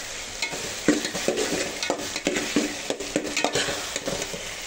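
A spoon stirring potatoes, peas and chicken as they fry in a metal pot, over a steady sizzle. The spoon knocks and scrapes against the pot a few times a second, each knock a short ringing clink.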